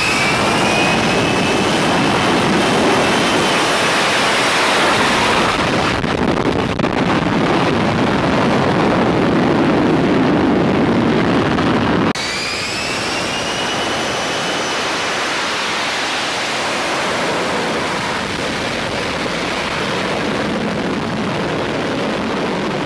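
Lockheed Martin F-35B's F135 jet engine and lift fan at high power, a loud steady roar with a rising whine, as the jet makes a short takeoff run along a ship's deck. About halfway through the sound cuts to an F-35B hovering near the deck, a slightly quieter roar with another rising whine.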